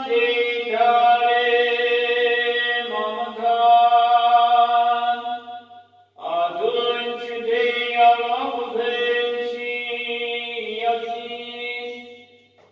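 An Orthodox priest's voice chanting the Gospel reading in long held tones, in two phrases with a short breath break about six seconds in.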